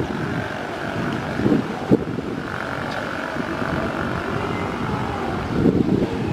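Distant propeller airliner on its landing approach, a faint steady drone, with wind gusting and thumping on the microphone; the loudest bumps come just before two seconds in and near the end.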